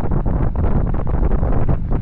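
Loud wind buffeting the microphone, a rough, steady low rush from riding a bicycle downhill at high speed.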